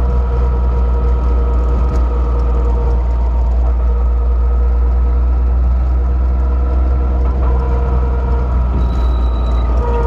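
Car's right front wheel hub or brake making a steady low metallic rumble, with a thin metallic whine that fades and comes back while the car is driven. The noise began after the right front wheel hit another car, and the owner suspects something has worked loose or is starting to fail, even though the hub and brakes were overhauled and the rotor and pads replaced.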